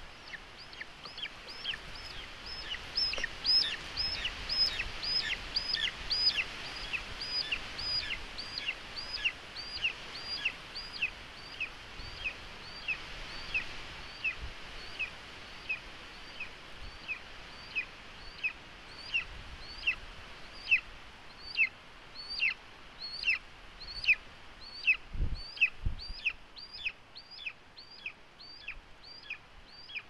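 Golden eagle nestling begging for food as a parent brings prey to the nest: a long string of high, thin calls, each sliding down in pitch, about two a second.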